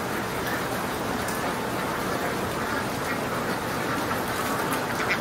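A large flock of ducks quacking all at once, a dense steady din of overlapping calls.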